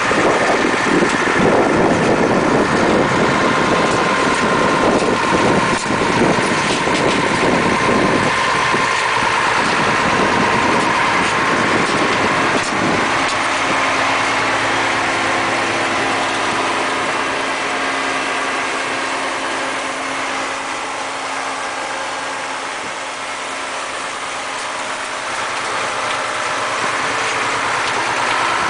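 Fendt tool-carrier tractor's diesel engine running at low, steady speed while it carries a 12-row automatic transplanter through the field. It is rough and noisy with small knocks for the first dozen seconds, then settles into a steady hum.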